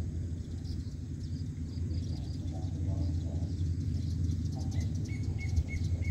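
Dusk ambience: a steady low rumble that slowly grows louder, under faint chirping of birds and insects, with a bird giving four short, evenly spaced high notes near the end.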